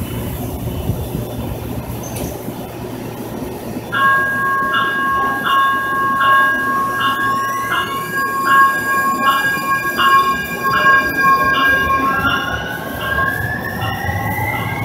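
Siemens S70 light rail train pulling out of a station. Its bell rings in a steady on-off pulse from about four seconds in, and the electric traction motors' whine rises in pitch as it speeds up.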